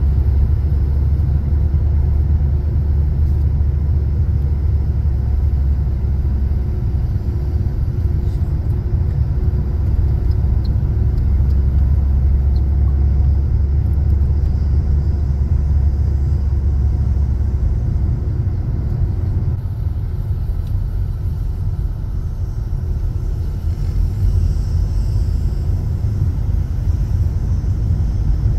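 Steady road and engine rumble inside a moving car's cabin. The deep rumble lightens somewhat about two-thirds of the way through.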